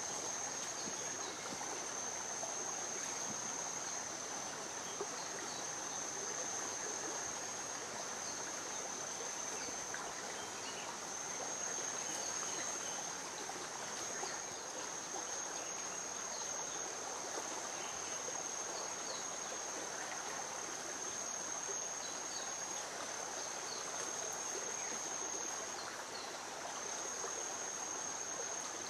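Forest ambience: an insect's continuous high, thin trill that breaks off briefly a few times, over a steady rushing hiss, with faint short chirps scattered through it.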